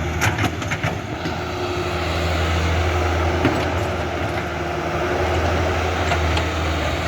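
Huina 1550 remote-control excavator running steadily: a low motor and hydraulic pump hum under a noisy whir, with a few short clicks or knocks near the start and again later.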